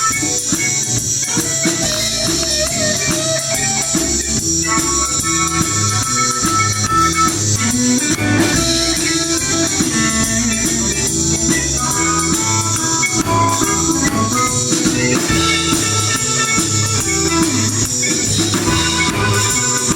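Blues music: guitar over a steady drum beat.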